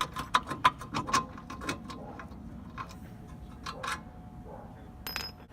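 Irregular sharp metallic clicks and taps of a hand tool working a stubborn front suspension lower control arm bolt. They come several a second at first and thin out after about two seconds.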